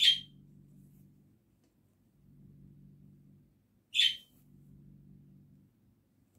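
Embroidery floss pulled through cross-stitch fabric, two quick zips about four seconds apart, over a faint low hum.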